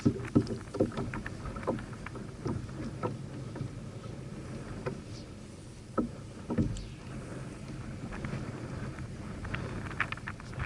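Small waves lapping against the hull of a Hobie Outback kayak, with irregular sharp knocks that come in clusters in the first second and a half, about six seconds in, and near the end.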